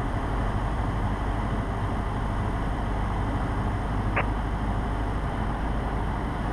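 Cessna 150 heard from inside the cabin in flight: its four-cylinder Continental O-200 engine and propeller drone steadily under the rush of airflow. A brief click about four seconds in.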